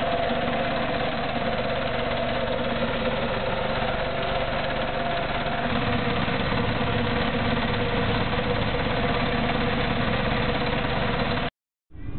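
Walk-behind sod cutter's small gasoline engine running steadily as the machine cuts a strip of turf. The sound cuts off suddenly near the end.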